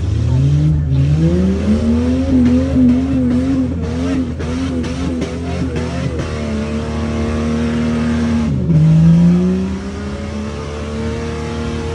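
Truck engine revving hard under load as it drives through a mud pit. The revs climb over the first two seconds and surge up and down, then hold high. About nine seconds in they drop sharply and climb again at the loudest point.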